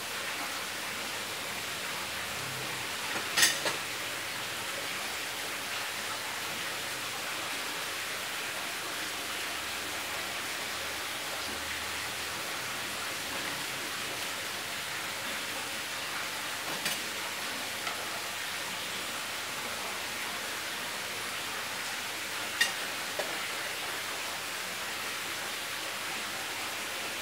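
Pancake frying in a buttered nonstick pan: a steady soft sizzle, with a sharp click about three seconds in and two fainter clicks later on.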